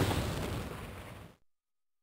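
Electronic sound effect from a DX Nichirin sword toy: an explosion-like crash with a low rumble, fading away within about a second and a half.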